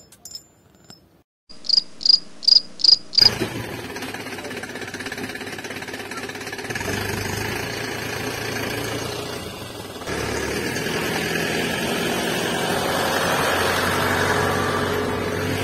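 Five quick high-pitched chirps, then the steady whirring drone of a toy tractor's small DC motor running off a 9-volt battery, growing slightly louder and changing character about ten seconds in.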